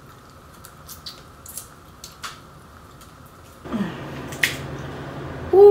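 Small sharp clicks and crackles of king crab shell being picked apart by hand and eaten. About four seconds in, a steady hummed 'mmm' of enjoyment with the mouth closed.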